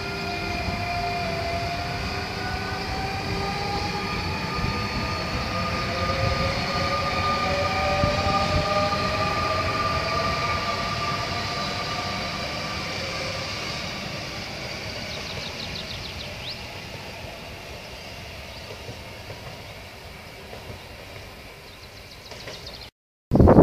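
Two coupled Z 23500 / Z 24500 double-deck electric multiple units pulling away: the electric traction motors whine in several tones that rise slowly in pitch as the train gathers speed, over the rumble of wheels on rail. The sound builds for about eight seconds, then fades as the train draws away.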